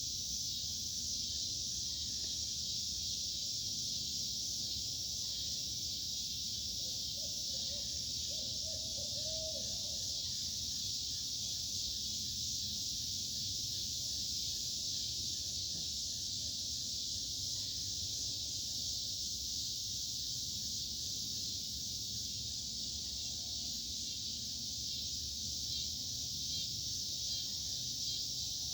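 A steady, high-pitched insect chorus that does not let up, with a faint, brief lower call about seven seconds in.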